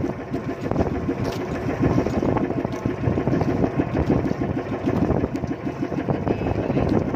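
Small boat engine running steadily, a rapid, even chugging rumble.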